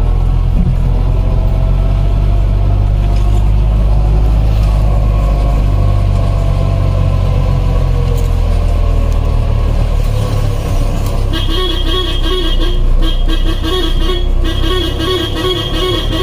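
Off-road jeep's engine running steadily as it drives along a forest track, a loud low drone whose pitch drifts slowly with speed. From about eleven seconds in, a rapidly pulsing high-pitched buzzing note joins it.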